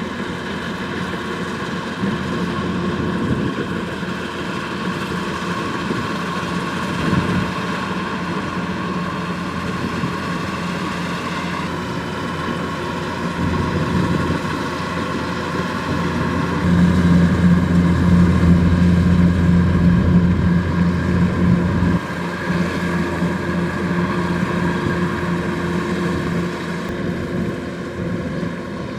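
Kubota DC-105X rice combine harvester running, a steady engine drone that swells louder for several seconds past the middle and then drops back.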